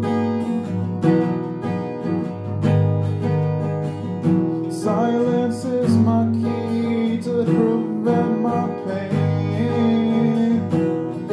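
Music: an acoustic guitar strumming chords in an instrumental passage of a song.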